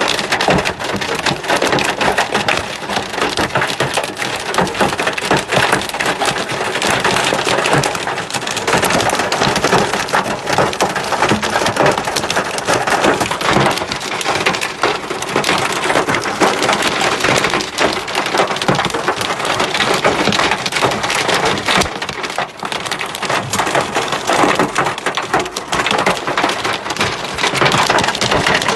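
Heavy hailstorm: hailstones pelting down in a dense, continuous clatter of countless small impacts, mixed with the hiss of heavy rain.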